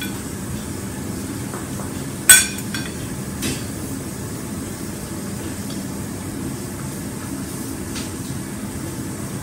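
A metal fork clinks sharply once against a plate a little over two seconds in, with a lighter knock about a second later, over a steady room hum.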